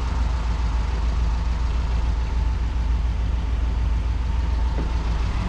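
Volkswagen Kombi's engine running, heard from inside the van: a steady low rumble with an even road-and-air hiss over it.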